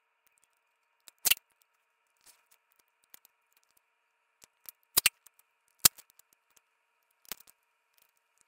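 Clear packing tape and a paper photo being handled: a handful of short sharp clicks and snaps, the loudest about a second in and between five and six seconds in, over a faint steady hum.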